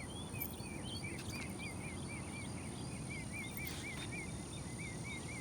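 Outdoor pond ambience: a run of short, high chirps repeating about four times a second, from a small animal such as a bird or frog, over a low steady background rumble.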